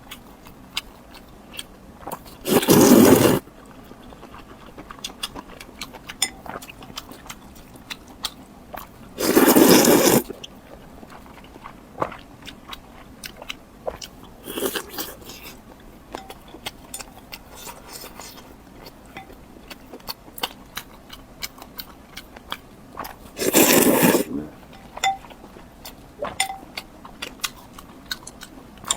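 Close-miked mukbang eating: steady chewing with many small wet mouth clicks, broken three times by a louder bite lasting about a second, near the start, about ten seconds in, and about two-thirds of the way through.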